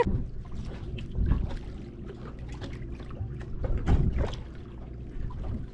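Water splashing and lapping around a night swimmer beside a yacht, in uneven swells, strongest about a second in and again near four seconds, over a steady low hum.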